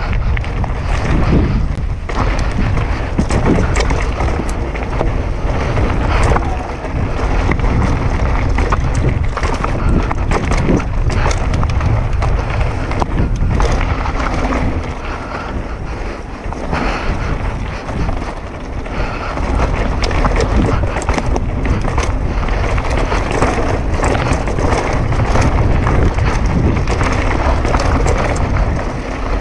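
Wind buffeting the action-camera microphone while a downhill mountain bike rolls fast over a dirt trail, with tyre noise and frequent clicks and rattles from the bike over bumps.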